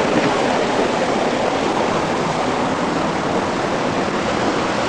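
Waterfall's rushing water, a steady, unbroken roar.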